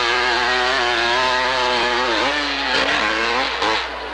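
Hillclimb dirt bike engine revving hard at high rpm as it climbs a steep dirt slope. The revs waver throughout and dip twice, about halfway through and near the end, then pick up again.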